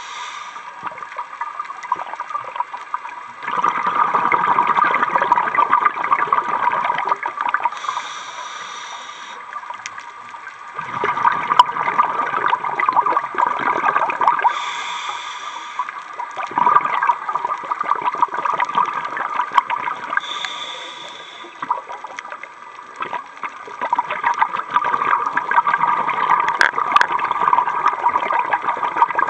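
Scuba diver breathing through a regulator underwater: a short hiss on each inhale, then a long bubbling rush of exhaled bubbles, repeating about every six to seven seconds.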